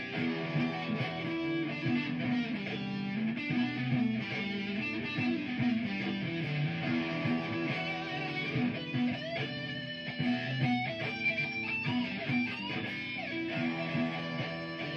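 Electric guitar improvising a lead over a looped guitar part that repeats the same low notes; the lead notes bend and glide in pitch.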